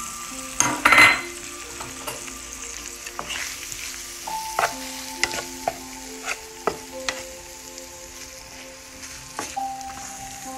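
Prawns and chopped onion sizzling in oil in a frying pan while a wooden spatula stirs them, with short knocks and scrapes of the spatula against the pan. A louder scrape comes about a second in.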